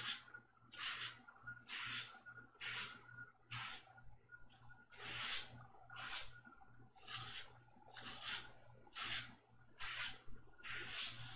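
Soft swishing strokes of a hand stroking a cat's fur, repeating about once a second, over a steady low hum.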